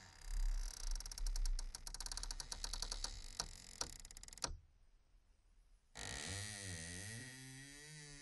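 Sound-effect track: a fast run of clicks, about ten a second at first and then thinning out, that cuts off suddenly about four and a half seconds in. After a second and a half of near silence, a low wavering, warbling tone comes in with a hiss above it.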